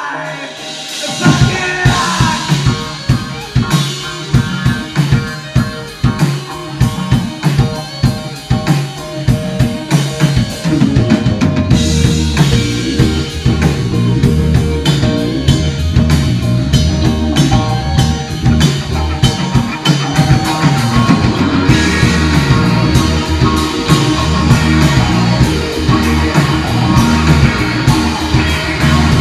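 A rock band playing live, drum kit and electric guitar together. The drums come in hard about a second in, and the low end fills out about eleven seconds in as the song builds.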